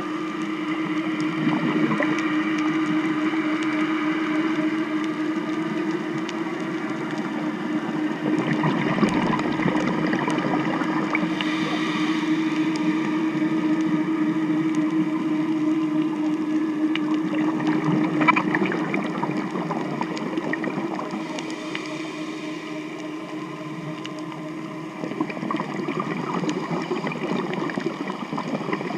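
Boat traffic heard underwater: motorboat engines and propellers passing nearby, a steady droning hum with one constant tone over a rushing noise. Near the end the tone fades and a rougher rushing noise takes over.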